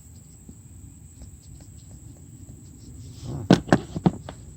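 Snap ring pliers being handled, with faint ticks and then three or four loud, sharp metal clicks about three seconds in as the interchangeable tips snap into place.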